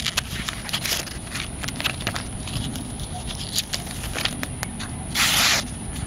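Boker DA048 folding knife slicing through a glossy paper flyer: crackling paper and small clicks as the blade works through, with one louder rasping slice about five seconds in.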